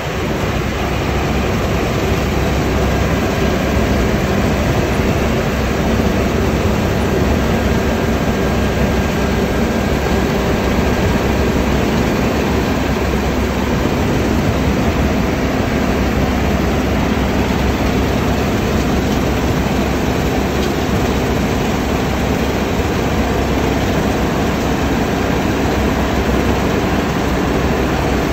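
New Holland combine harvester working in a wheat field: a steady, unbroken running noise of its engine and threshing machinery, with a faint hum under it.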